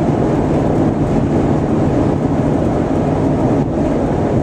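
Steady rumble of tyres and engine heard inside a car cabin while driving at highway speed.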